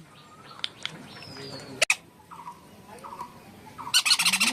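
Pet Indian parakeet calling: a few soft short chirps, then about four seconds in a loud burst of rapid, harsh squawks. A sharp click comes about two seconds in.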